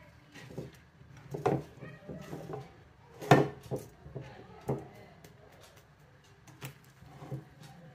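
Metal couscoussier steamer basket knocking and clunking against its pot as steamed vermicelli is tipped in and tossed by hand, with soft rustling of the noodles between the knocks. The loudest clunk comes a little over three seconds in, with smaller knocks near the middle and end.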